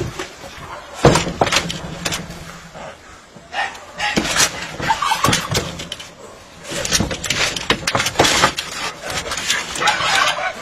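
Cats fighting in the March mating season: a run of sudden hissing, spitting and scuffling bursts.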